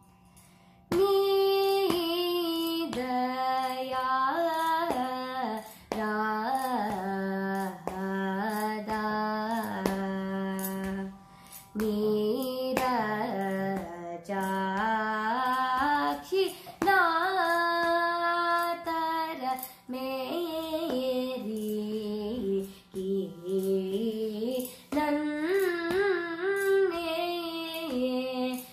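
A young female voice sings a Carnatic varnam in raga Andolika, Adi tala, starting about a second in. The notes are held and bent with sliding ornaments, in phrases with short breaks for breath, over a steady low drone.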